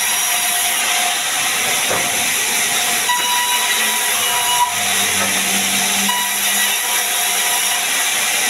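Large vertical band saw ripping a wooden plank lengthwise: a steady hissing noise, with a faint high tone that comes and goes.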